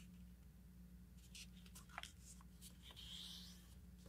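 Near silence with faint, brief rustles of a sheet of paper being folded by hand and its crease pressed down, and a soft swish about three seconds in.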